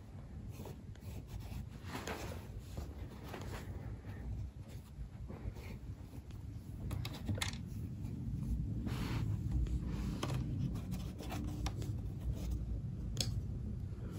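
Small white mini sewing machine running and stitching through cotton fabric, with the rustle and scratch of the fabric being guided by hand; it gets a little louder about halfway through.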